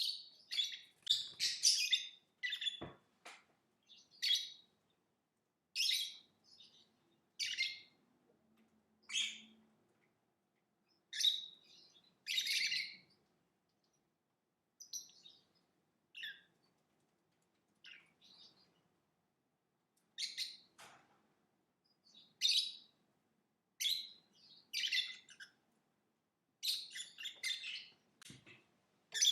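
Lovebird chirping: short, sharp, high-pitched chirps in quick clusters, separated by pauses of a second or two. The chirps are thinner and quieter through the middle and come thick again near the end.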